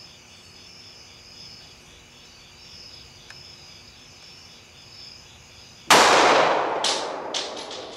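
Crickets chirring steadily, then about six seconds in a single shot from a Glock 19 9mm pistol firing an Underwood +P+ 147 gr Gold Dot round into a ballistic test block. The loud report dies away over about two seconds, with several sharp clicks and clinks in its tail.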